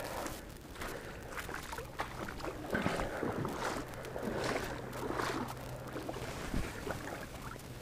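Small waves lapping and splashing irregularly at the water's edge, mixed with rustles and light knocks of the angler handling and swinging a fishing rod to cast.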